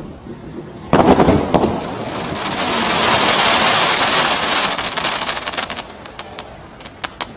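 Barracuda 77-shot firework cake (barrage) firing its last shots: a cluster of loud bangs about a second in, then a dense crackle of crackling stars that swells and thins out into scattered pops.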